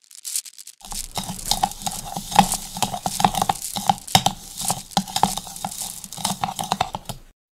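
Whisk beating in a bowl: a quick, irregular run of scraping and clinking strokes that starts about a second in and stops shortly before the end.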